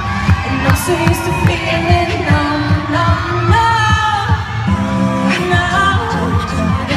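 Live pop song: a woman and a group of men singing together in harmony over a steady beat.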